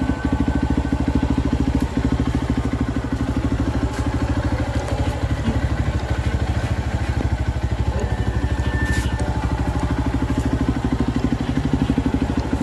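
Honda XR150's single-cylinder four-stroke engine idling steadily, with an even, rapid putter of firing pulses.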